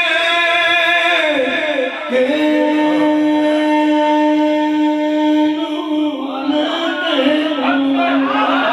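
A man's solo voice singing unaccompanied devotional verse, with a long held note from about two seconds in to about six seconds, then winding, ornamented runs up and down in pitch.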